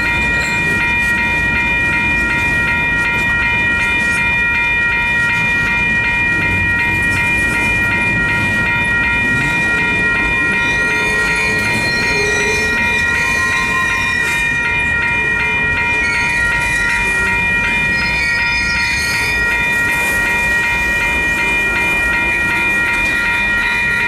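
Freight train of refrigerated boxcars rolling past at trackside: a steady, loud rumble of wheels on rail with some clickety-clack. Several steady high ringing tones sound over it without a break.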